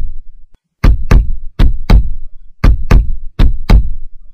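Heartbeat sound effect: loud paired thumps, lub-dub, about one pair a second, cut off right at the end as a steady tone begins.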